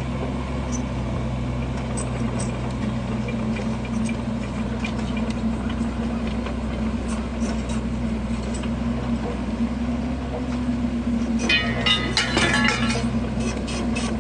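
Kubota U50 mini excavator's diesel engine running steadily, with scattered light clinks. A short burst of scraping clatter comes about twelve seconds in.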